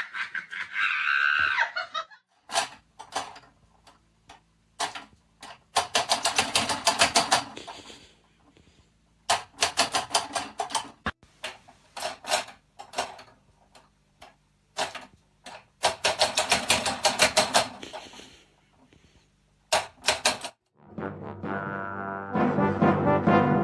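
Several bursts of rapid clicks separated by short quiet gaps, then music with brass starting near the end.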